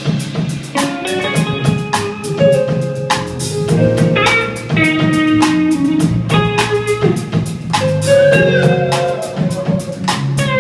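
Live blues band playing an instrumental passage: electric guitar leading with held notes over drum kit and bass.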